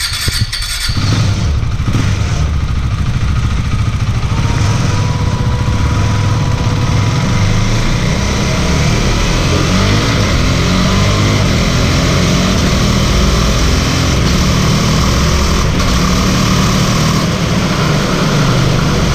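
KTM Duke 390's single-cylinder engine running hard on a roller dynamometer as the rider shifts up through the gears. The quickshifter cuts the ignition briefly at each upshift, so no clutch is used.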